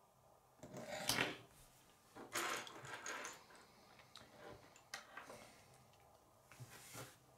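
Hands handling plastic K'nex pieces and rubbing on a wooden tabletop: several short bursts of rustling with a few sharp clicks.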